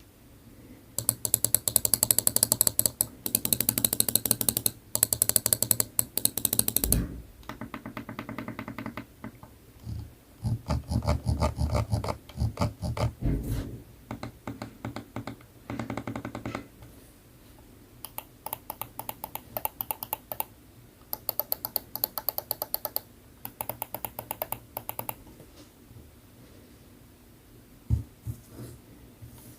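HyperX Pulsefire Haste 2 Wireless gaming mouse buttons clicked rapidly in long bursts of many clicks a second, with short pauses between runs. The clicking stops well before the end, apart from a single click near the end.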